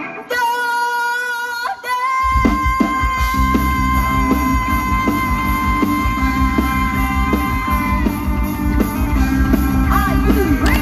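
Live band music with a long held note at the close of a vocal line. Drums and bass come in about two seconds in, and a sustained high note carries on over them for several seconds.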